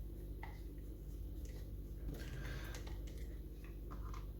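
A few faint clicks and short scrapes from a lever mortice lock being handled, over a steady low electrical hum.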